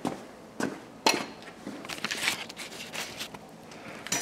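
Hydraulic engine hoist being jacked up with a chain hung on the tractor's front bolster: a few light metallic clinks and knocks from the chain and steel parts, spaced irregularly.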